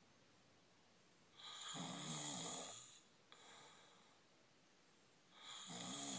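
A sleeping person snoring: two long snores, each about a second and a half, roughly four seconds apart, with quiet between.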